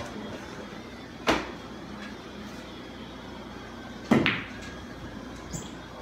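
A single sharp knock about a second in, then a few seconds later a pool cue strikes the cue ball, followed at once by the clack of the cue ball hitting an object ball.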